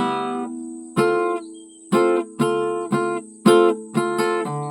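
Guitar strumming chords: about nine sharp strums, each ringing briefly before the next, first slowly and then faster near the end.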